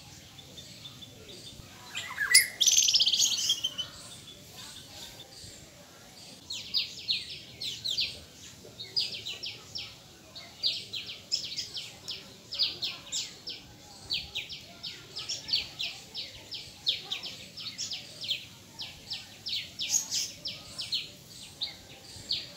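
Bird-like high chirps repeated in quick runs, with one louder, longer call about two seconds in.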